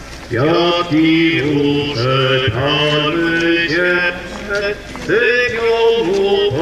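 Voices singing a chant-like religious song, holding each note for about half a second and sliding up into it.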